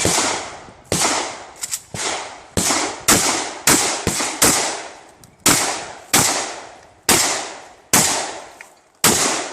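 Shotgun fired rapidly in an IPSC practical shooting stage: about a dozen loud shots at uneven spacing, some under half a second apart, others a second apart, each with a ringing tail.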